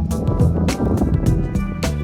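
Background music with a steady drum beat and sustained instrument notes.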